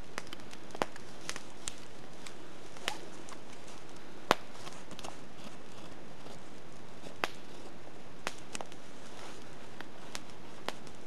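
Knife carving a spoon of alder wood by hand: irregular sharp clicks as the blade bites into the wood, about a dozen of them, the loudest about four seconds in.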